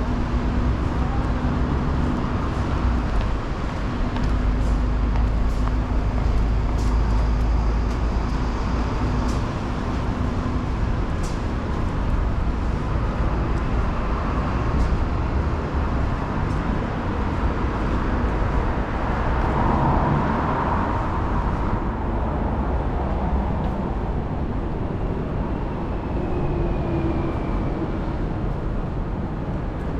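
Road traffic passing on a rain-wet city street, a steady wash of tyre and engine noise, with a deep rumble of strong wind on the microphone.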